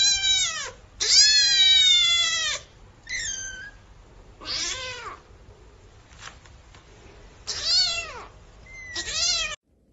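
Young kittens meowing: about six high-pitched mews, each sliding down in pitch, the longest starting about a second in and lasting about a second and a half.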